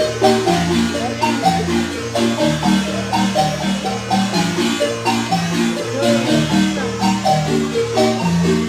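Guatemalan marimba playing a lively tune, a melody of quick notes over a steady bass line.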